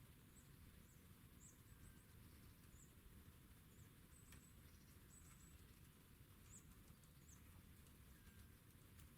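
Faint, high-pitched chirps of small songbirds: about a dozen short calls scattered throughout, over a low, steady background rumble.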